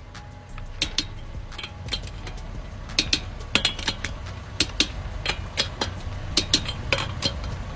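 Click-type torque wrench on wheel lug nuts: a series of sharp metallic clicks, irregularly spaced and some in quick pairs, as the nuts are checked against the set torque, confirming the torque-stick tightening.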